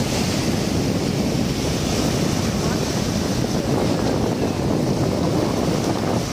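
Small waves breaking and washing through the shallows, with wind buffeting the microphone.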